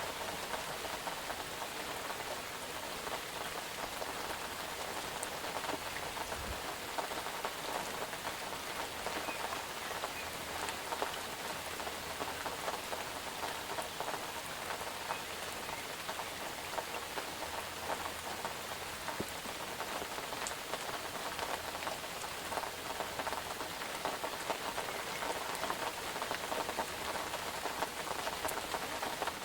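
Steady rain falling on a surface: an even hiss with many small drop ticks.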